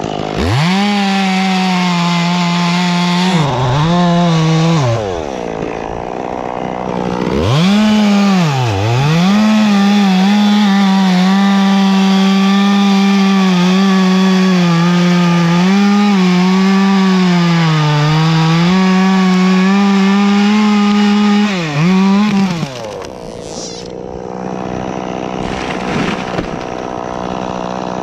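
Chainsaw at full throttle cutting through the dead, dry trunk of a mountain ash, its pitch sagging and wavering as the chain bites. It cuts out about five seconds in, revs up again a couple of seconds later and runs steadily until it stops near the end, leaving a quieter noisy stretch.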